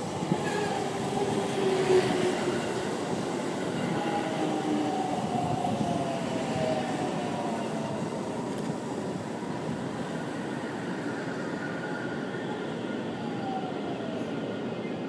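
JR Central 313 series electric train running slowly along the platform as it brakes. Its traction motors whine in several tones that fall steadily in pitch, over the rumble of wheels on rail.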